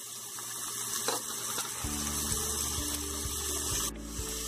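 Goat spleen pieces, onions and spices sizzling in hot oil in a pan, a steady crackling hiss. Low steady tones of background music come in about two seconds in.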